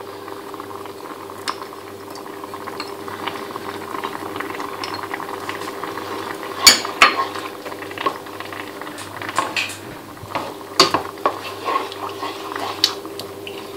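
A cooking spoon stirring a cream sauce in a frying pan, with the soft bubbling of the simmering sauce underneath. From about halfway on, the spoon knocks and scrapes against the pan several times at irregular spacing.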